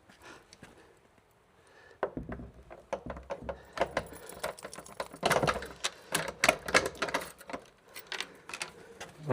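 Keys rattling and clicking in a door lock as it is worked open. A quick, irregular run of metallic clicks and jangles starts about two seconds in.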